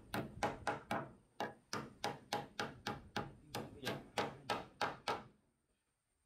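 Rapid, even series of hard strikes, about three to four a second, each a sharp knock, with a brief pause about a second in; the strikes stop about five seconds in.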